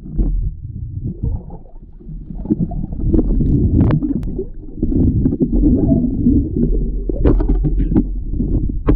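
Muffled low rumble of water moving against an underwater camera housing as a spearfisher swims, with scattered knocks and clicks, a couple of sharper ones about four and seven seconds in.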